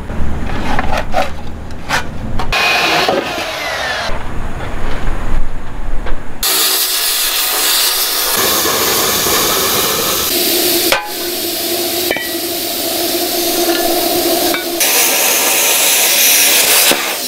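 A handheld plasma cutter hissing steadily as it cuts steel plate, then a MIG welder crackling as it welds a steel plate onto a steel tube. These are cut together from several short clips, and the sound changes abruptly a few times.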